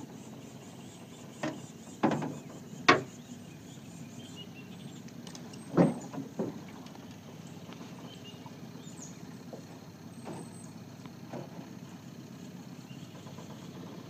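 Several hollow knocks and bumps as a boat and a dead tree snag are handled, the loudest about three seconds in and another near six seconds, with fainter ones later, over a steady low rumble.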